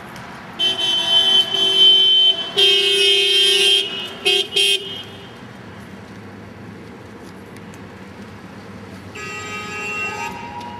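Car horn honking: two long blasts, then two short toots about four seconds in, and another long honk near the end.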